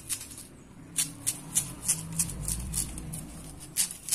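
Outer sheaths being stripped by hand off a tuhau (wild ginger) stalk: a run of short, dry, rasping tears, about three a second. A low rumble runs underneath through the middle.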